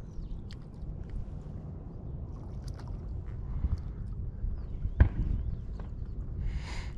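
Water lapping and sloshing with a steady low rumble, scattered small clicks, one sharp click about five seconds in and a brief hiss near the end.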